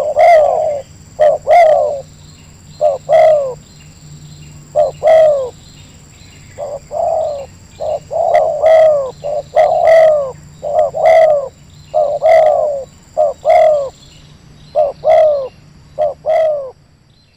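A dove cooing over and over in short, loud phrases of two or three falling notes. The calls stop shortly before the end.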